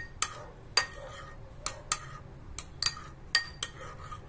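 Metal spoon clinking against a white ceramic bowl while stirring a soy-sauce dipping sauce: about a dozen irregular, sharp clinks, two or three a second, each with a short ring.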